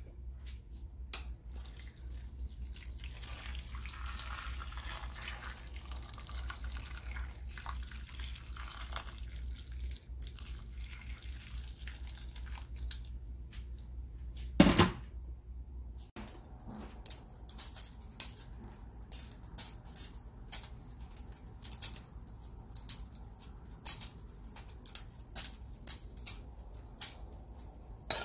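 Water pouring steadily into a nonstick pan of raw pork back bones. About halfway through there is one loud knock, and after that comes a run of sharp, irregular clicks and taps.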